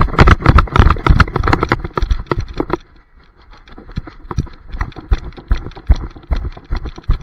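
A running dog's footfalls and body jolts, heard through a camera strapped to the dog: rapid rhythmic thuds, heavy and dense for about the first three seconds, then lighter and more spaced.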